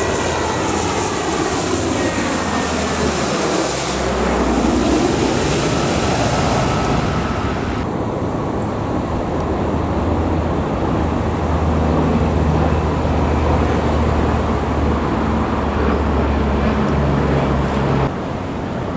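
Lockheed C-130H Hercules's four Allison T56 turboprops passing low overhead: a loud propeller drone whose whine falls in pitch as the aircraft goes by, then a steady low drone. The sound changes abruptly about 8 and 18 seconds in.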